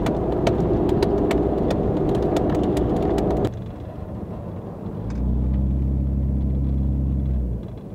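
Vehicle driving, with engine and road rumble that cuts off suddenly about three and a half seconds in. A steady low drone follows for a couple of seconds near the end.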